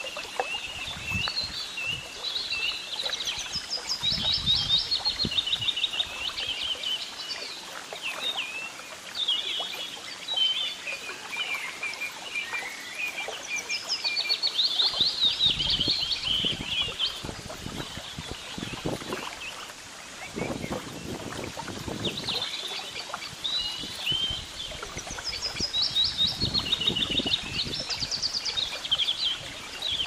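Small songbirds singing throughout in quick, repeated chirping trills, over scattered low thumps.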